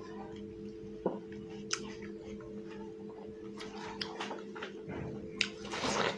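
Watermelon being bitten and chewed: scattered wet clicks, sparse at first and more frequent in the second half, the loudest near the end, over a steady low hum.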